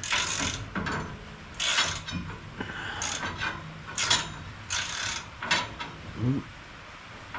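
Socket ratchet wrench clicking in short bursts of strokes, about one burst a second, as bolts on a round baler are turned.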